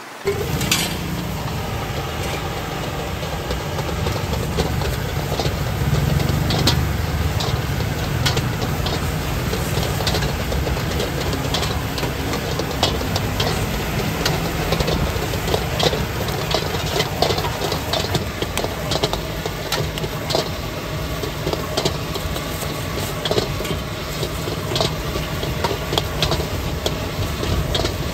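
Gas stove burner running steadily with a low rumble, with frequent quick metal clinks and clatter of cooking utensils on pans.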